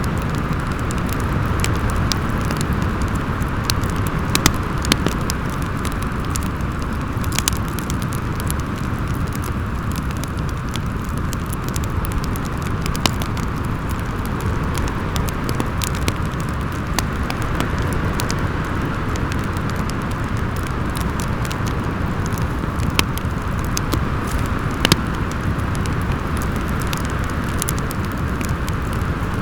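Storm wind howling steadily with a low rumble, over a fireplace crackling with scattered sharp pops.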